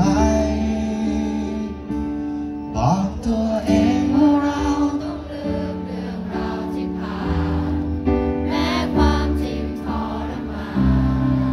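Live band playing a slow pop ballad, with guitar and bass under a singing voice that glides between held notes.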